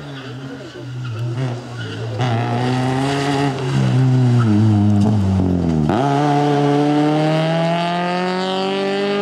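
Fiat Cinquecento Sporting rally car's 1.2-litre 16-valve four-cylinder engine running hard. Its note sinks over the first six seconds as the car comes off the throttle, dips sharply, then climbs steadily as it accelerates hard.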